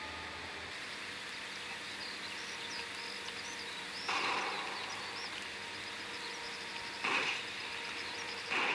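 Outdoor film-soundtrack ambience: a steady background hiss with faint high chirps, broken by three short rushing noise bursts about four, seven and eight and a half seconds in.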